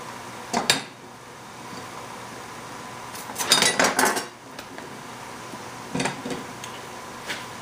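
Kitchenware being handled: sharp clicks and clatter from a plastic hand-held citrus squeezer and dishes, with a short run of clattering about three and a half seconds in and a few lighter knocks after.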